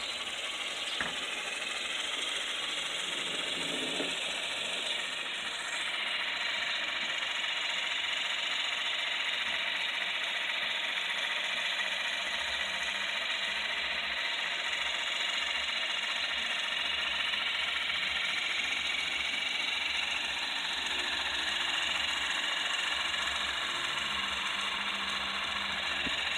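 Two small battery-powered electric hobby motors whirring steadily as they spin the twin rotors of a popsicle-stick model helicopter, the rotors turning at about the same speed.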